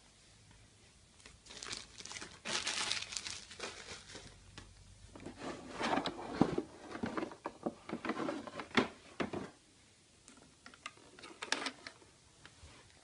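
Packaging crinkling and rustling as it is handled, in three spells, with a few sharp clicks.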